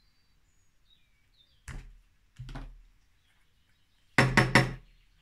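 Knocks from handling a clogged glue bottle: two soft knocks, then three quick sharp raps, the loudest sound, about four seconds in, as she works at the blocked bottle.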